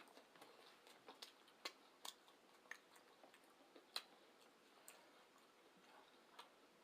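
Faint close-up chewing: a person eating, with soft wet mouth clicks at irregular intervals.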